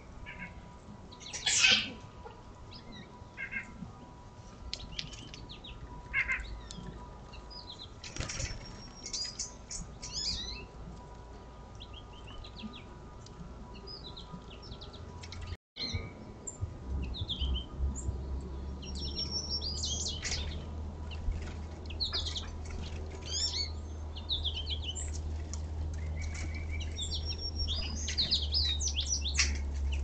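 Small wild songbirds chirping and calling in many short, high, overlapping notes, with a sharp tap about two seconds in. After a brief dropout about halfway, a steady low rumble runs under the calls.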